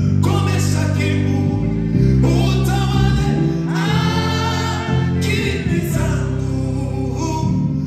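Gospel song: a man singing into a microphone over live keyboard accompaniment with held chords and bass notes.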